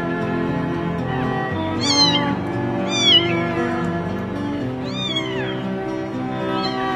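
A very young kitten mewing: high-pitched cries that fall in pitch, about two, three and five seconds in, then a faint one near the end, over background music. The cries are a small abandoned kitten's cries for help.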